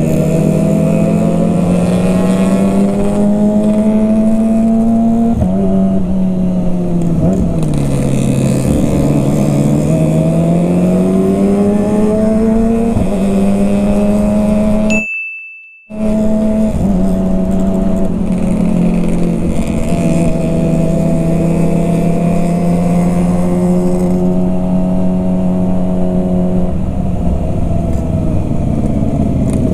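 Sport motorcycle with an aftermarket racing exhaust, heard from on board while riding, with wind rush throughout. The engine note drops as the bike slows about six seconds in, then climbs again as it speeds up. About fifteen seconds in, a short high beep is followed by a second of silence.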